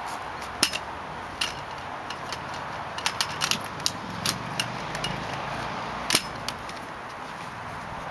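Scattered light clicks and rattles of strap buckles and hardware as webbing straps are threaded and fastened on an aluminium frame, over steady background hiss. A cluster of clicks comes about three seconds in, and a sharper one just after six seconds.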